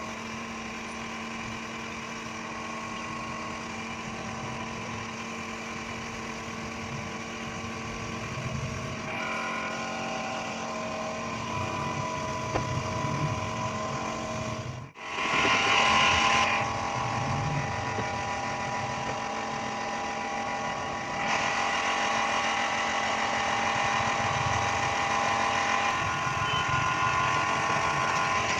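A steady machine hum with several fixed tones. It cuts out abruptly about halfway through, then comes back louder with more hiss.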